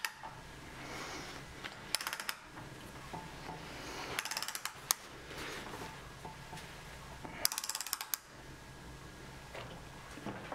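Ratchet head of a long torque wrench clicking in three quick runs as the handle is swung back between pulls, tightening a motorcycle's steering stem nut to its 110 N·m torque spec.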